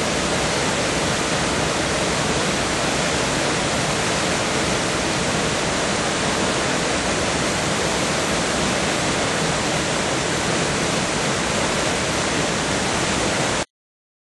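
High Force waterfall on the River Tees: a steady, loud rush of water falling into its plunge pool, cutting off suddenly near the end.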